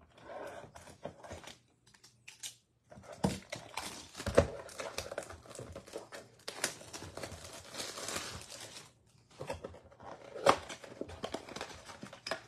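Cardboard tear strip ripped along a trading-card blaster box, then plastic card-pack wrappers crinkling and being torn open. The rustling grows louder about three seconds in, with a few sharp crackles.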